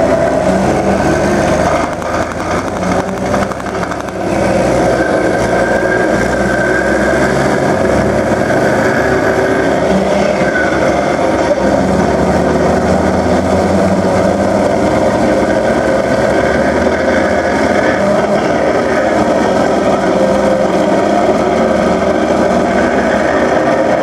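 Tracked armoured vehicles, Type 74 tanks and a Type 89 infantry fighting vehicle, driving past close by with their diesel engines running loudly and steadily.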